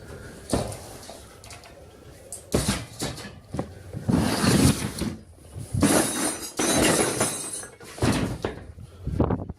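Hard objects clattering and knocking as things are handled and set down, in irregular bursts that are busiest in the middle.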